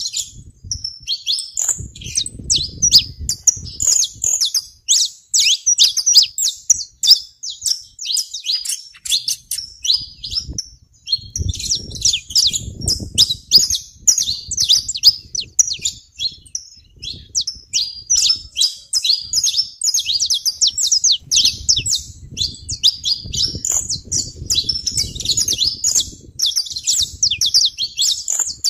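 Saffron finches singing and chirping: a dense, near-continuous run of quick high chirps, with a low rumble coming and going at times.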